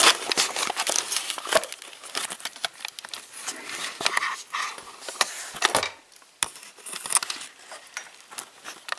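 Handling noise from a camera being taken off its stand and moved about by hand: rustling and rubbing on the microphone with scattered sharp clicks and knocks, busiest in the first few seconds.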